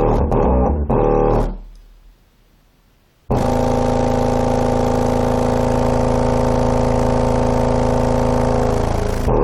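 Rebuilt JL Audio W7 subwoofer playing bass-heavy music loud, driven by an amp putting out about 4000 watts. Choppy bass hits at first, then the sound fades almost away; a little over three seconds in, a long steady bass note starts suddenly and holds until near the end, when the choppy hits come back.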